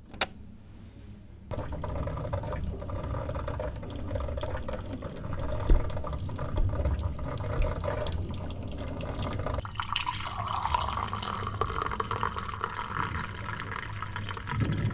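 A click as the switch on an electric drip coffee maker is pressed, then the machine gurgling and hissing steadily as it heats water and brews. About ten seconds in the sound changes to liquid pouring, coffee running from the glass carafe into a ceramic mug.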